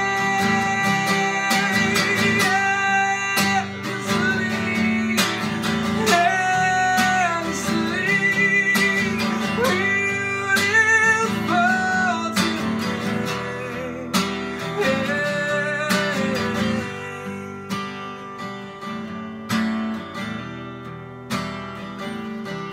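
A man singing with long, wavering held notes over a strummed acoustic guitar; after about two-thirds of the way the voice drops out and the guitar strums on more softly.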